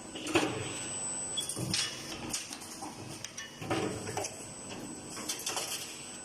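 2D CNC wire bending machine working: a steady hum with a faint high whine, broken by a series of short, irregular mechanical clanks and rattles from the bending and feeding action.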